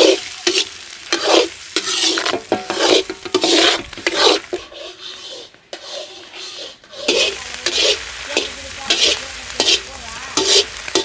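Metal spatula scraping and stirring in a hot pan while eggs are scrambled in sizzling oil. The strokes come one or two a second, pause for about two seconds midway, then start again.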